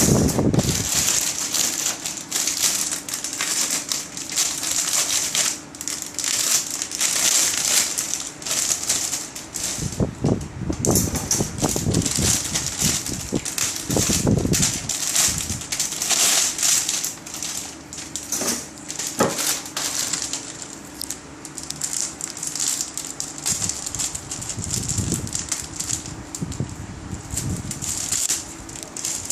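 Thin plastic bags crinkling and rustling in an irregular crackle as plastic model kit runners are handled and unwrapped.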